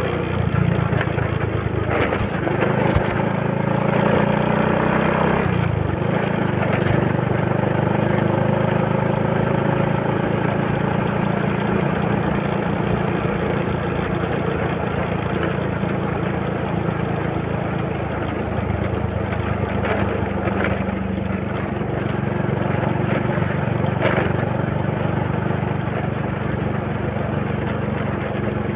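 Honda Supra underbone motorcycle's single-cylinder four-stroke engine running while under way, heard from the handlebars with wind and road noise over it. Its note steps lower about five seconds in.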